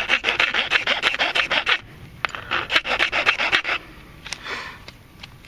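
Round chainsaw file rasping with quick back-and-forth strokes as it cuts a bowstring notch into the tip of a PVC pipe bow. The filing comes in two runs, with a short break about two seconds in, and fades near the end.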